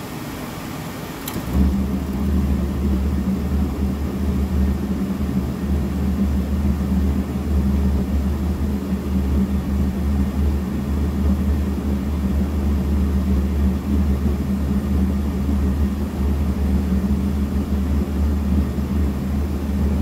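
RV propane furnace on the bench: after its blower runs briefly, the burner lights about a second and a half in with a sudden low roar, which then keeps running steadily. The flame stays lit because a pipe keeps the exhaust from being drawn back into the combustion air intake.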